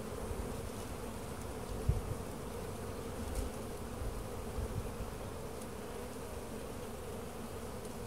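Honeybees humming steadily from an open hive body as a frame covered in bees is lifted out. A few soft low thumps come through, the clearest about two seconds in.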